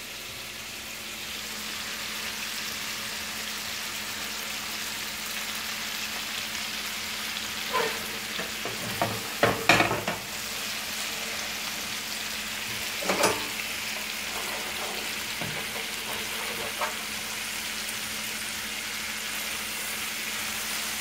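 Chicken breasts frying in butter and a reducing red-wine pan sauce, a steady sizzle throughout. A few sharp knocks break in about eight to ten seconds in and again near thirteen seconds.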